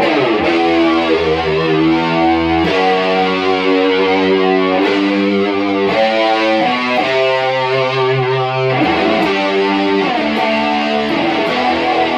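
Electric guitar, slightly overdriven, playing a slow line of held chords and notes through the amps. Each rings for a second or two before the next is struck.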